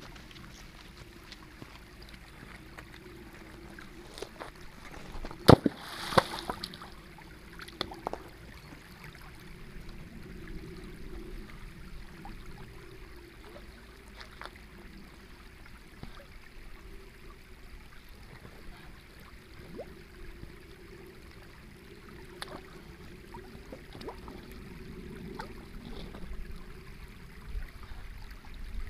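Shallow water trickling over stones, steady throughout, with two sharp knocks about five and six seconds in and a few fainter taps later.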